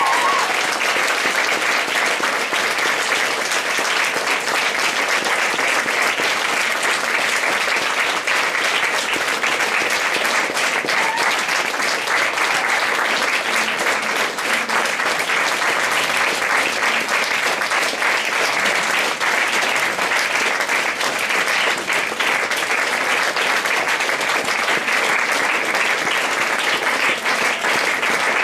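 Audience and cast applauding, a dense, steady clapping of many hands that does not let up.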